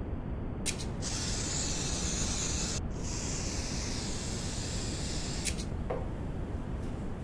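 Aerosol can of nano waterproofing spray hissing as it mists a suede sneaker. There are two long bursts, starting about a second in, with a brief break near the middle, and stopping a little after five seconds. A short click comes just before the spray starts and another as it stops.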